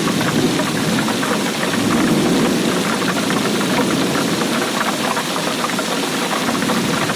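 Heavy rain falling steadily, a dense patter of drops with a deep rumbling layer underneath.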